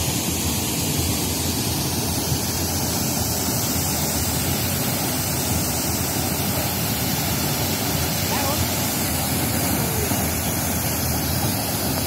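Muddy floodwater rushing and cascading over an eroding earth bank, a steady unbroken roar of churning water.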